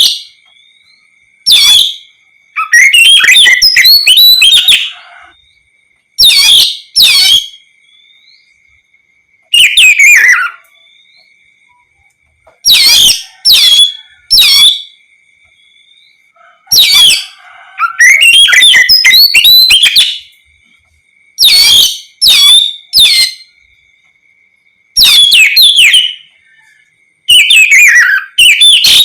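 Oriental magpie-robin (kacer) singing loudly in about fifteen short, varied song phrases, each a fraction of a second to two seconds long and separated by brief pauses. A faint steady high tone runs underneath.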